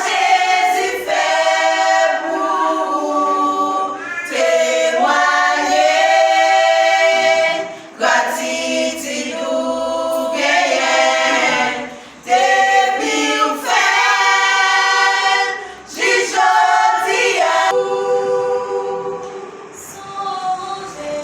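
Gospel choir singing a cappella in phrases with short breaths between them.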